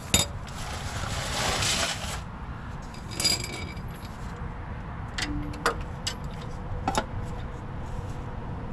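Metal tools and parts clinking and clattering as they are handled and moved, a few sharp clicks spread through, with a short rustling hiss lasting about a second and a half near the start.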